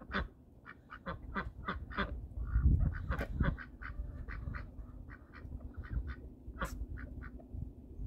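Domestic ducks quacking in a string of short calls, a few a second, loudest about three seconds in.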